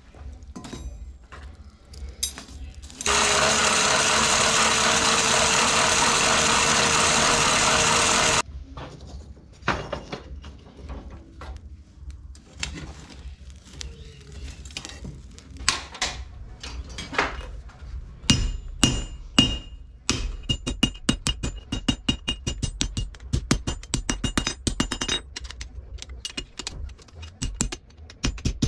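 Metalworking in a workshop on a steel bearing ring. A loud, steady machine noise runs for about five seconds and then cuts off suddenly. Scattered knocks and clinks follow, then a quick run of sharp strikes on steel that ring.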